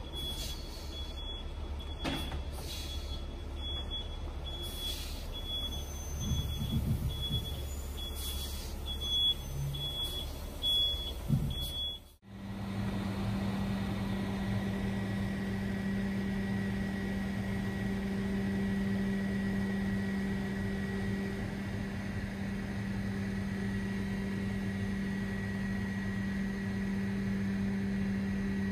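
Heavy diesel truck engine rumbling while a reversing alarm beeps on and off; after about twelve seconds a crane truck's engine takes over, running at a steady speed with a constant hum as its crane lifts a precast concrete seepage ring.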